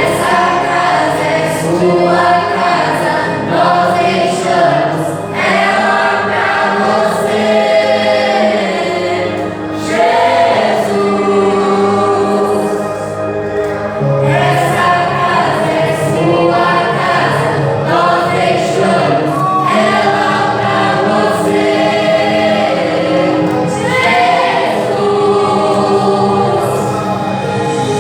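Church praise group singing a Christian worship song in chorus, voices together over musical accompaniment.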